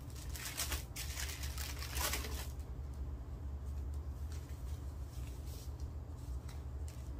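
Paper wrapper of a sterile glove pack rustling and crinkling as it is unfolded, for about two and a half seconds, then quieter faint handling sounds as a sterile glove is pulled on. A steady low hum runs underneath.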